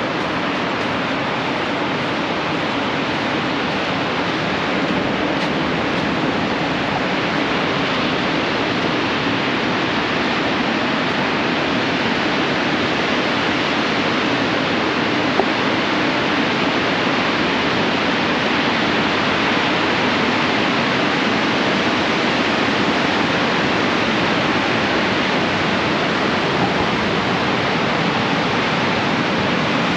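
Ocean surf breaking on the beach: a steady, even rush of waves with no distinct single breakers.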